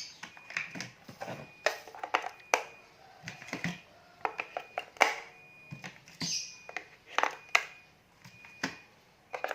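AA alkaline batteries being fitted into the plastic battery compartment of a Flysky FS-i6 radio transmitter: irregular clicks, knocks and rattles of the cells and plastic, with a couple of short scraping slides.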